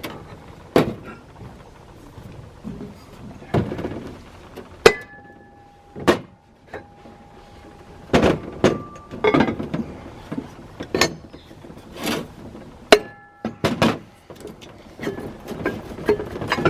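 Rubber-faced hammer knocking the bell out of a Leslie RS5T locomotive horn: a dozen or so sharp knocks at irregular intervals, several leaving the metal horn parts ringing briefly.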